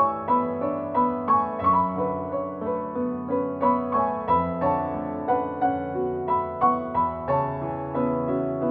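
Background piano music: gentle, steady notes played about three a second in a flowing arpeggio.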